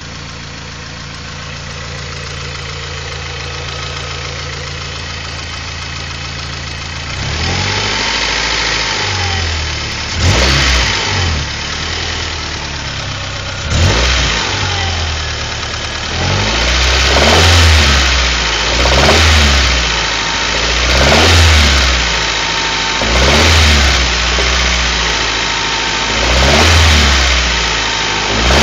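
Honda H23A1 2.3-litre four-cylinder engine idling steadily, then revved from about seven seconds in: two quick blips, then about five longer rises and falls. It has a knock that the owner suspects is a worn wrist pin.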